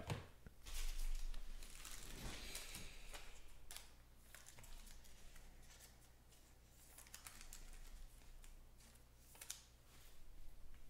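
Trading cards being handled and slid into plastic card sleeves: soft plastic rustles, slides and light clicks, coming and going, busiest in the first few seconds.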